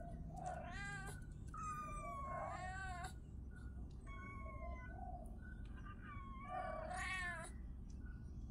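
Kitten meowing over and over: about four high mews, the longest about two seconds in and the loudest about seven seconds in, with short faint peeps between them.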